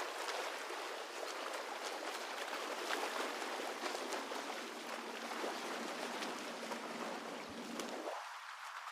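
Steady rushing noise like running water, with scattered crackles. Near the end a sweeping filter thins out its low end.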